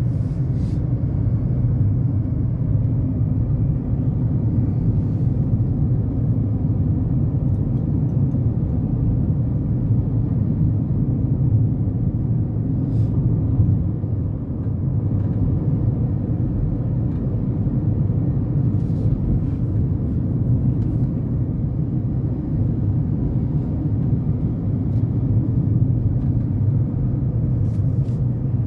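Steady low rumble of road and engine noise inside a Honda Element's cabin while it drives along a paved road.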